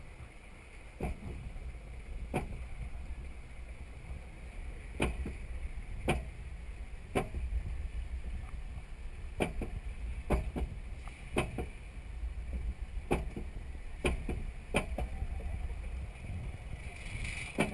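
Mine-train roller coaster climbing its chain lift hill: a steady low rumble from the lift with sharp clicks about once a second, the anti-rollback ratchet catching as the train climbs.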